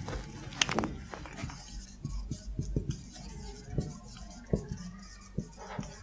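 Marker pen writing on a whiteboard: short scratchy strokes and taps, with a sharp click about half a second in.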